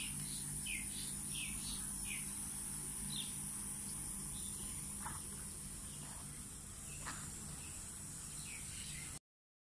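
Small birds chirping in a run of short, falling calls, thickest over the first couple of seconds and then sparser, over a steady high insect buzz and a low steady hum. All sound cuts off abruptly near the end.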